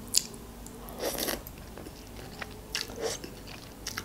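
Close-up eating sounds of cup instant noodles: a handful of short mouth noises as a forkful of noodles is taken in and chewed, the longest about a second in.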